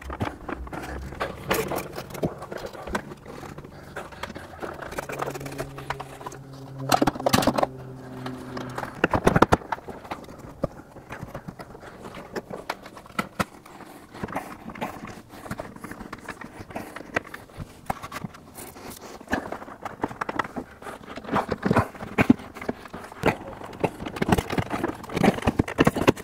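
Plastic rear bumper cover of a Chevrolet Camaro ZL1 being fitted back onto the car: irregular scraping, clicking and knocking as it rubs against the taillights and is pushed up into its clips, with two louder knocks about seven and nine seconds in.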